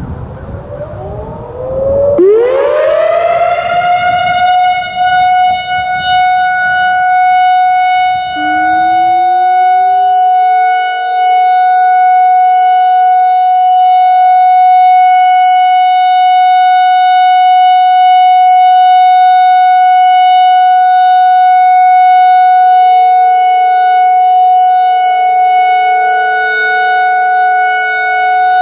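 Whelen WPS-4004 electronic outdoor warning siren starting its steady alert-tone test: the tone sweeps up in pitch over the first couple of seconds, then holds one loud, steady wail. About eight seconds in, a second, lower tone slides up and joins it, and both hold steady together.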